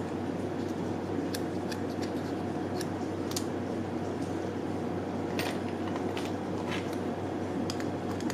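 Small metallic clicks and scrapes of a thin design-knife blade prying up the tabs of a tinplate toy train body, about ten irregular ticks over a steady low hum.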